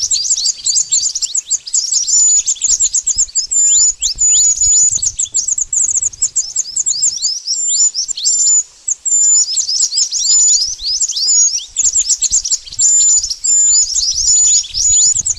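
Mantenan bird call played as a bird lure: a rapid, almost unbroken stream of thin, high chirps, mostly quick downward-sweeping notes mixed with short level whistles. There is a brief pause a little past halfway.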